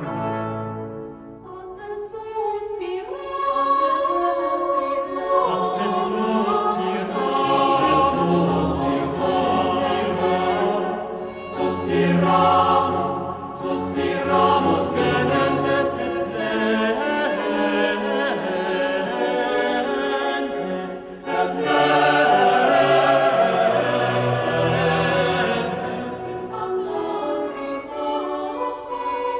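Background classical music: a choir singing with an orchestra, held notes swelling and fading.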